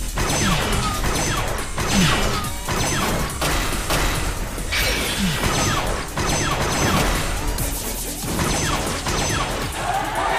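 Anime battle sound effects: a rapid series of crashes and impacts with short whooshes, over background music.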